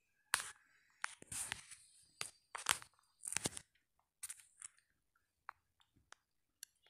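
Kitchen handling noises: a quick run of short crunchy scrapes and clicks, like a spoon and steel bowls being handled, over the first few seconds, then a few fainter ticks.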